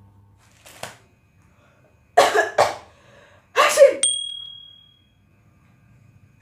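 A person coughs twice in quick succession, then coughs once more, louder, about a second later. A short high ding tone follows right after.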